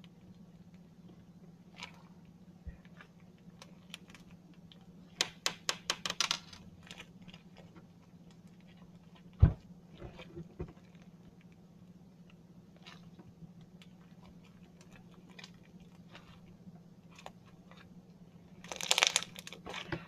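Crunchy slime (fluffy slime mixed with beads) being stretched and squished, giving scattered crackling clicks and pops. There is a quick run of clicks about five to six seconds in, one sharp loud pop about nine and a half seconds in, and a dense crackle near the end, over a faint steady hum.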